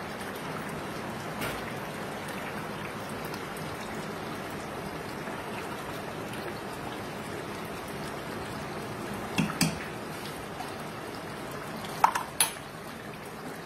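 A spoon stirring thick curry gravy in an open metal pressure cooker pot over a steady low hiss. It clinks sharply against the pot twice about nine seconds in, and a few more times about twelve seconds in.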